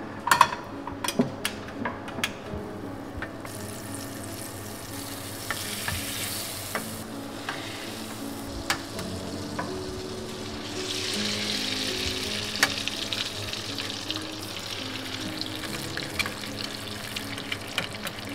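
Eggs frying in butter in a small aluminium pan on a gas stove. The sizzle swells about five seconds in and grows louder and steadier from about eleven seconds, with a fork clicking against the pan. A few sharp knocks come in the first seconds, and soft music plays underneath.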